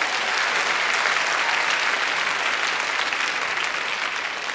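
A large audience clapping, a dense steady applause that eases off a little toward the end.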